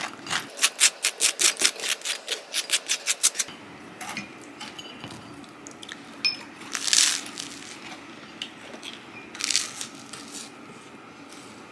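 A butter knife scraping quickly back and forth over crisp toast, about five short strokes a second for the first few seconds. Then two crunching bites into the crisp toast, a few seconds apart.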